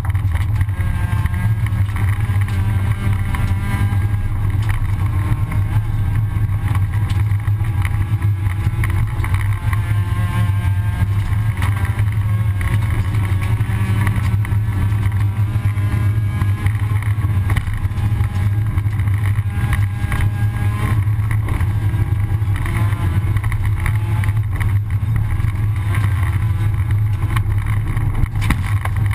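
Rally car engine running hard at speed, heard from inside the cockpit, its note drifting up and down with the revs. Steady tyre and gravel road noise runs under it.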